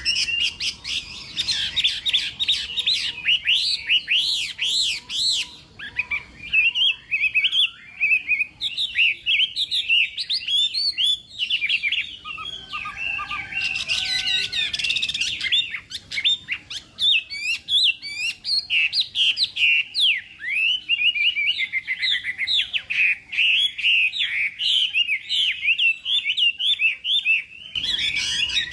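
Chinese hwamei singing a long, rapid, varied song of sweeping whistled notes with hardly a break.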